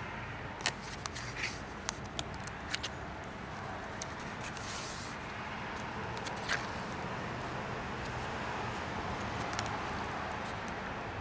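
Thick collaged pages of a hand-made art journal being handled and turned: stiff paper rustling, with several sharp ticks in the first three seconds and a brushing swish about five seconds in, over a steady background hiss.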